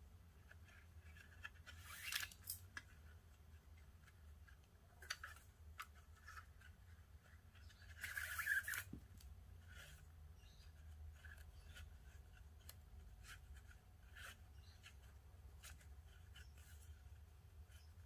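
Nylon 550 paracord rustling and swishing as it is pulled through loops of a knot by hand, with scattered light clicks of handling. The loudest swishes come about two seconds in and again around eight seconds in, over a faint steady hum.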